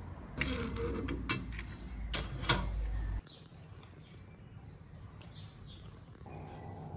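Split firewood knocking and clattering as logs are fed into a metal wood-burning stove: a few sharp knocks over a low rumble, cutting off suddenly about three seconds in. After that, faint high bird chirps.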